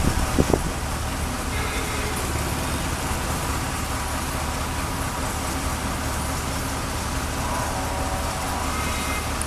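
Steady low drone of heavy diesel engines from a Kobelco SK200 excavator at work and idling dump trucks, with a couple of knocks about half a second in. A motorcycle passes near the end.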